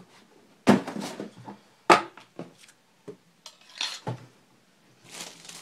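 Objects knocked and set down on a wooden table: two sharp knocks about a second apart, then lighter metallic clicks and scrapes as a metal dagger is handled. A rustle of plastic wrapping starts near the end.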